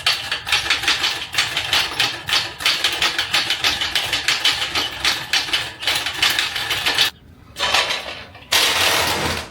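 Rapid, irregular metallic knocking and rattling, several hits a second, for about seven seconds. It breaks off, then comes back in two shorter bursts near the end.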